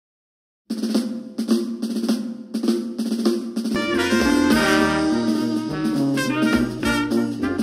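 Background music starting about a second in with a drum kit, then brass and a bass line coming in about halfway through, in a jazzy swing style.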